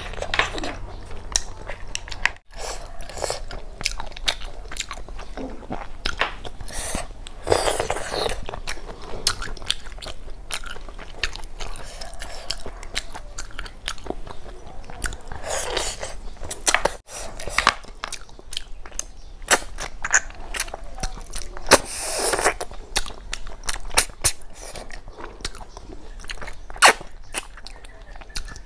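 Close-miked eating sounds of snail curry and rice being eaten: wet chewing and mouth sounds with many sharp clicks, and longer slurping noises about 8, 16 and 22 seconds in.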